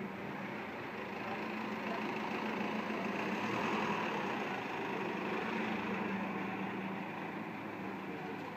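Green village minibus driving past close by, its engine and tyre noise swelling to a peak about four seconds in and fading as it pulls away, over a steady street hum.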